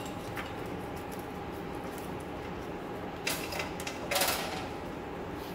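Wire and taped connector scraping and rustling as a gloved hand works them through a hole in a steel frame rail: two short scrapes, about three and four seconds in, over a steady background hum.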